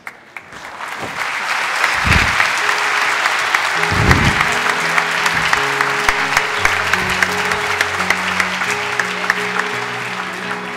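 A large congregation applauding, the clapping swelling over the first second or two and then holding steady. Held instrumental chords come in under it about three seconds in, with a deep boom at about two seconds and another at about four.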